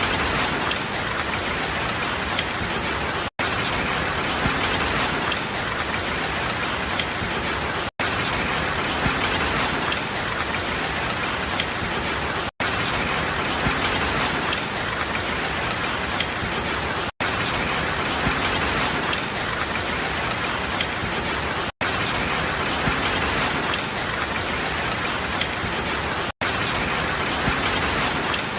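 Steady rain falling, with the fine patter of drops hitting a surface. It cuts out for an instant about every four and a half seconds.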